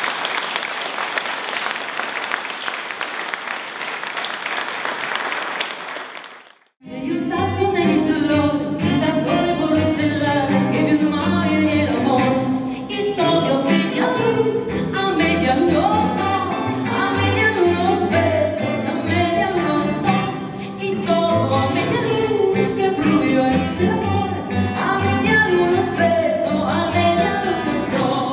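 Audience applauding for about six seconds, cut off abruptly. Then a tango ensemble of violin, acoustic guitar and double bass starts playing, with a woman singing.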